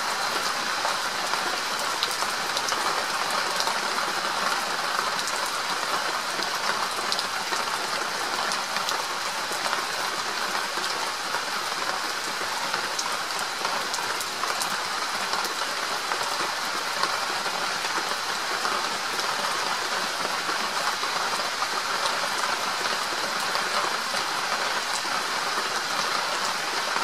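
Steady heavy rain falling, an even hiss with many small drop taps scattered through it.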